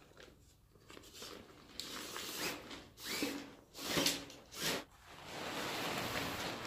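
Tent fabric rustling and crinkling as it is handled while a tent pole is fed in and its tip seated in a grommet. It comes in several short bursts, then a steadier swishing rustle near the end.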